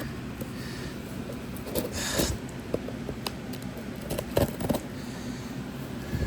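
Packaging being handled during an unboxing: scattered light knocks and clicks, with a short rustle about two seconds in, over a steady low hum.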